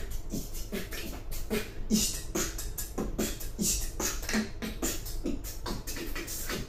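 A human beatboxer performing a fast, steady beat: mouth-made kick drums as low thuds and hissing hi-hat and snare sounds, about five hits a second.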